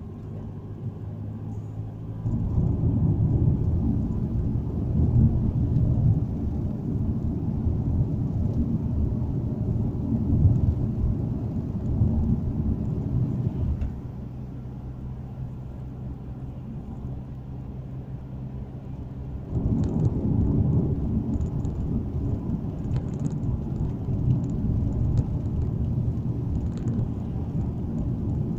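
Car engine and tyre noise heard from inside the cabin: a steady low rumble with a faint engine hum underneath. It gets louder about two seconds in, drops back around fourteen seconds, and rises again around twenty seconds.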